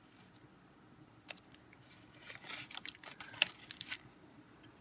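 Small plastic bead bag rustling and little metal charms clicking as they are handled, with one sharp click about three and a half seconds in.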